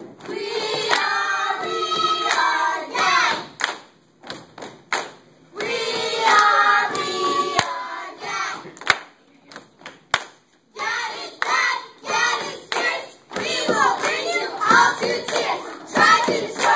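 A group of children and adults chanting a cheer in unison in two long sung phrases, with sharp hand claps between them. Excited shouting and clapping fill the last few seconds.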